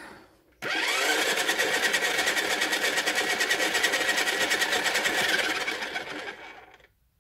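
A pottery wheel's motor switches on abruptly under a second in. It runs with a steady whine and a fast, even flutter, spinning a paint-covered vinyl record, then winds down and stops about a second before the end.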